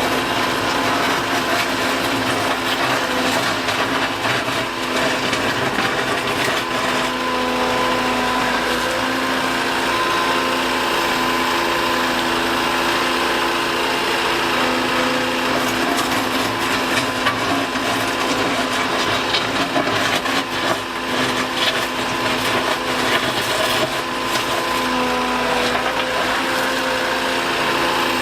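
Liebherr A 910 compact wheel excavator running steadily with a hum and a whine, while its bucket knocks and scrapes against broken asphalt, most often in the second half.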